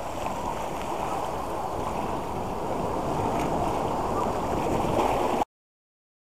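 Small waves washing and splashing against jetty rocks; the sound cuts off suddenly about five and a half seconds in.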